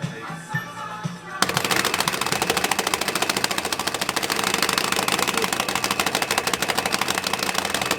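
Rapid, continuous hitting of a street arcade game's button or pad, a fast even rattle of many strikes a second that starts about a second and a half in.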